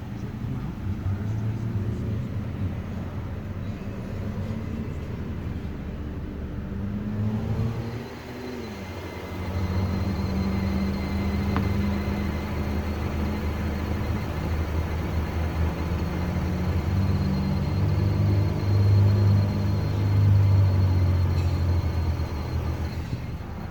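A 1999 Saturn SC1 with its engine running steadily and a hissing noise around the fuel tank. The engine sound dips briefly about eight seconds in, and after that a faint high steady tone sits above the hiss.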